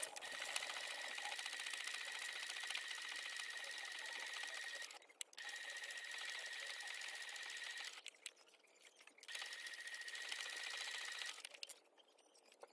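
Brother sewing machine stitching patchwork fabric: a steady motor whine under rapid needle ticking. It runs in three spells, stopping briefly about 5 seconds in, again for over a second about 8 seconds in, and once more near the end.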